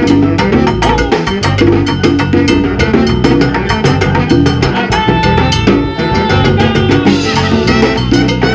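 Salsa band playing: a dense run of conga, timbales and drum hits under held horn lines from trumpet, trombone and saxophone, with piano and bass.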